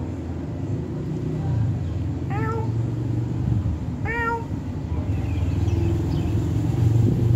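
Domestic cat meowing twice, two short calls about two seconds apart, during courtship between a pair of cats. A low steady hum runs underneath.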